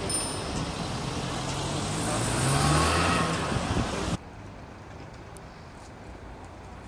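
A car drives past close by. Its engine and tyre noise grows louder to a peak about three seconds in, then cuts off abruptly just after four seconds, leaving quieter steady street traffic noise.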